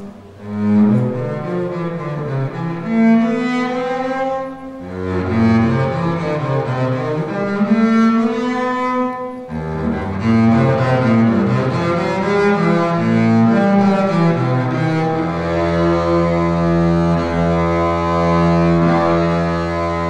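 Solo double bass played with the bow: a slow melody of changing notes in phrases, then one long low note held for the last few seconds.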